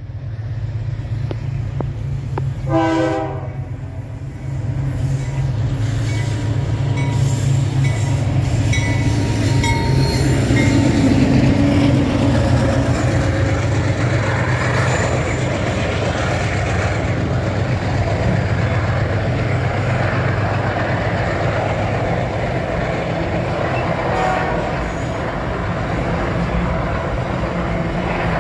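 Diesel freight locomotives sound a short horn blast about three seconds in, then pass with their engines running in a steady low drone. The clatter of container wagons rolling over the rails builds and stays loud after them.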